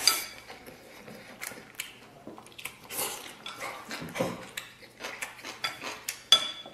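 A person slurping in a mouthful of noodles, then chewing with many short wet clicks and smacks of the mouth.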